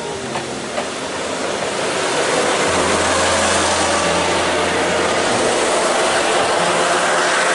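Ise Railway diesel railcar moving past close by at the platform. Its engine and wheel noise builds over the first two seconds to a steady loud rumble.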